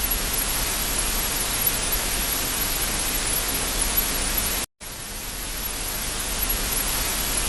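Steady static hiss with a low hum beneath it; it cuts out abruptly for a split second a little over halfway through, then comes back and swells up again.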